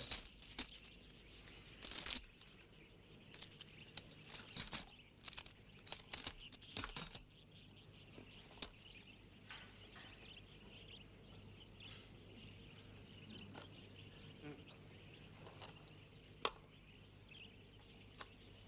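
Coins clinking and rattling as they are handled, a quick run of small metallic clinks over the first seven seconds or so, then only a few faint scattered clicks.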